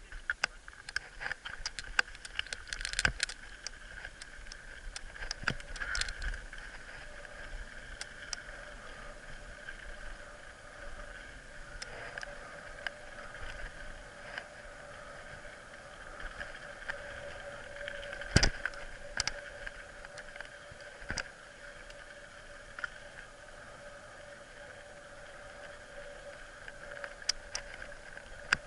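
Mountain bike ridden over a dry dirt trail, heard from a camera mounted on the bike: steady rolling and wind noise with a steady whirring tone, broken by frequent sharp rattling knocks over bumps. The knocks are thickest in the first few seconds, and the loudest one comes about eighteen seconds in.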